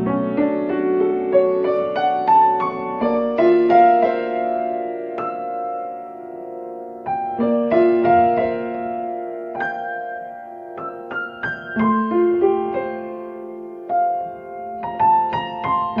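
Solo grand piano playing a new-age piece: a melody of struck notes over chords, each left ringing into the next.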